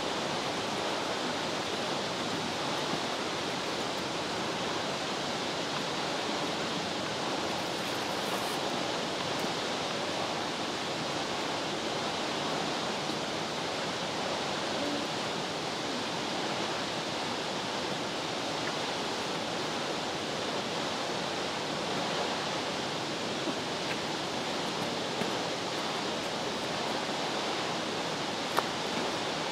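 Waterfall pouring steadily: an even rush of falling water that does not let up, with a brief sharp click near the end.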